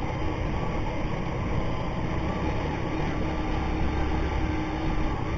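Motorcycle underway on the road, its engine running under a steady rush of wind and road noise, heard through an action camera's add-on microphone. A faint steady engine hum stands out in the middle-to-late part.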